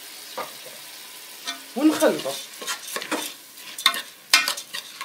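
Metal spoon stirring rice with oil and spices in a steel pot over a high gas flame. Repeated clicks and scrapes against the pot ring over a steady sizzle as the rice toasts in the oil.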